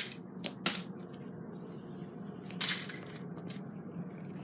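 Faint handling noises: a sharp click just under a second in and a brief soft rustle a little before three seconds, over a low steady hum.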